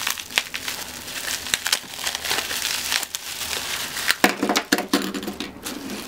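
Bubble wrap and thin plastic bags crinkling and crackling as they are pulled open by hand, with a few sharp clicks among them.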